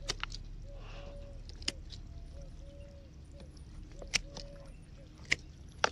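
Bypass pruning shears snipping suckers and low shoots off the trunk base of a young pomegranate sapling: about half a dozen sharp, irregularly spaced clicks, the loudest about four and five seconds in.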